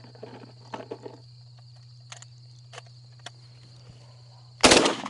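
A single shotgun shot about four and a half seconds in, sudden and much louder than anything else, its report trailing off afterwards. Insects trill steadily behind it.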